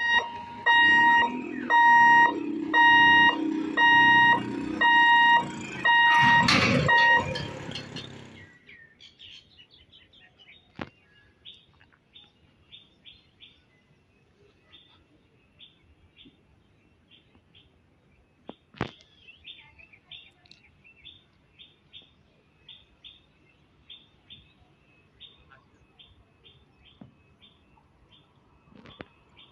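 Level-crossing warning alarm sounding a fast, steady string of loud electronic beeps over the low running of passing motorbikes, stopping abruptly about eight seconds in. After that, faint repeated bird chirps at a quiet trackside, with a couple of single clicks.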